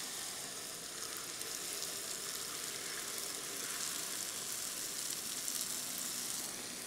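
Jalebi batter deep-frying in hot oil in a flat iron pan: a steady sizzle with a few faint crackles.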